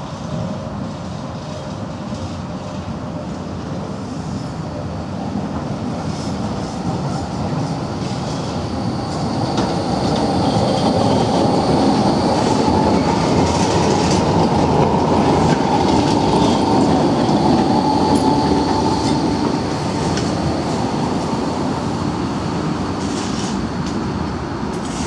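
Articulated low-floor tram rolling slowly around a tight turning loop, wheels rumbling over the rails with a thin, high wheel squeal from the curve. It grows louder as it passes close, loudest about halfway through, then eases off as it curves away.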